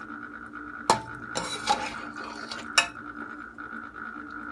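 Metal slotted spoon stirring chicken curry in a stainless steel pot, clinking and scraping against the pot. There is a sharp clink about a second in, a scrape just after it, and another sharp clink near three seconds.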